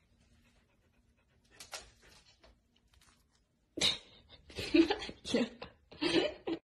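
Small dog yapping: four or five short, sharp barks in quick succession, starting about four seconds in.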